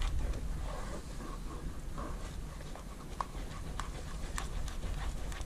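A spoon stirring gravy as it thickens in a cast iron pot, knocking lightly against the pot's sides in scattered taps, over a low steady rumble.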